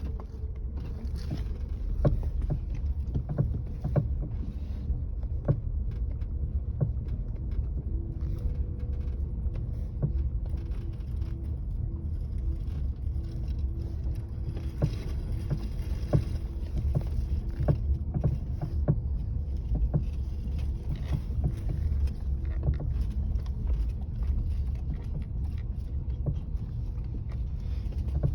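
Knocking from worn anti-roll bar (stabilizer) end links: sharp, irregular knocks over the steady low rumble of the moving car. The knock is the sign of faulty stabilizer links.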